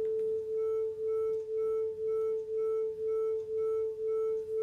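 Two electronic test tones, 440 Hz and 442 Hz, sounding together and beating: one steady pitch that goes loud and soft about twice a second, a "wah, wah, wah". The 2 Hz beat is the difference between the two slightly out-of-phase frequencies.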